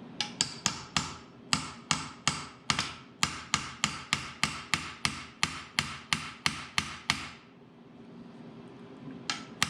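Hammer striking a nut welded onto a broken bolt in a steel mower deck: quick, ringing metal blows, about four a second, to shock the heated bolt loose. The blows stop for about two seconds near the end, then start again.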